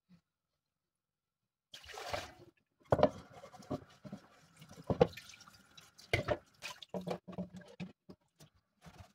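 Dishes being washed by hand at a kitchen sink: tap water running and splashing as a pot and a frying pan are rinsed and scrubbed, with several sharp knocks of the pans against the sink. It starts after a second or two of near silence.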